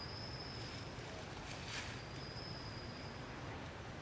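Outdoor forest ambience: a steady low rumble, with two thin, high, steady whistling tones of about a second each and a brief rustle a little under two seconds in.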